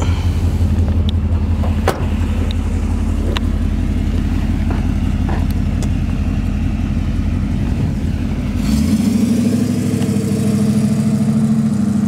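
1967 Chevrolet Camaro's engine and exhaust running in a steady low drone while driving. About nine seconds in it changes to a rising rev as the car accelerates away.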